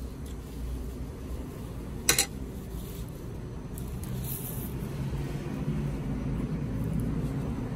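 Steady low room rumble, with one sharp metallic clink about two seconds in from a spoon set down on a metal serving platter.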